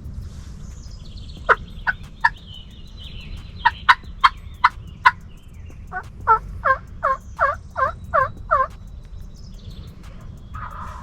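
Wild turkey yelping: three short yelps, then five, then a quicker run of about eight two-note yelps, each note breaking from high to low.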